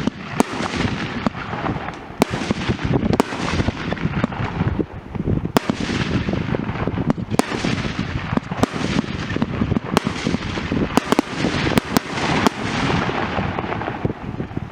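Fireworks going off: a steady crackle with many sharp bangs at irregular intervals.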